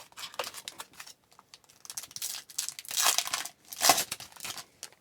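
A hockey card pack's wrapper being torn open and crinkled in the hands, in a run of irregular crackles that is loudest about three and four seconds in.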